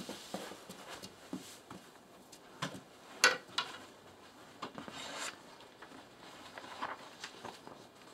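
Faint scattered knocks, shuffles and rustles in a small room, with a sharper knock about three seconds in.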